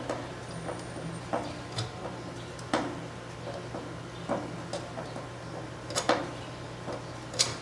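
Irregular light clicks and knocks, about eight scattered through, the two loudest near the end, over a faint steady low hum.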